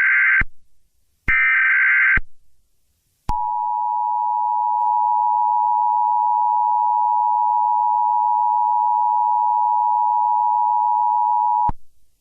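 Emergency Alert System header: two short, harsh data-burst screeches in the first two seconds, then the two-note EAS attention tone sounding steadily for about eight seconds and cutting off sharply. It is the signal that opens a broadcast alert, here a tornado emergency.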